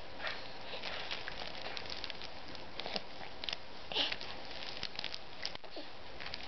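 Soft rustling and small scattered ticks from a baby's arms and sleeves moving against a play mat and soft toys, over a steady hiss.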